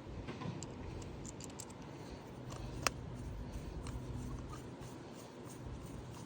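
Faint small clicks and ticks of carburetor parts and a tool being handled as the main jet is screwed back in, with one sharper click about three seconds in, over a low steady hum.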